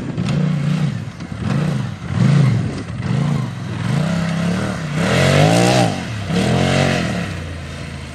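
Polaris side-by-side UTV engine revving up and dropping back again and again, about once a second, as the driver works the throttle over dirt mounds. The highest, loudest revs come a little past halfway.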